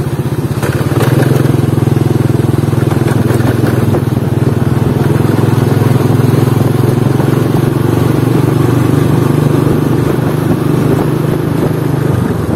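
Motorcycle engine running steadily while riding along, heard from on the bike.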